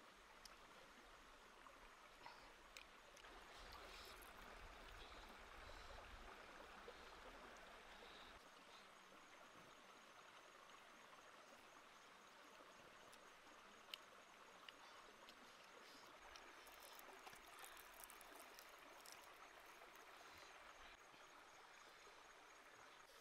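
Near silence: a faint, steady outdoor background hiss, with a few soft clicks.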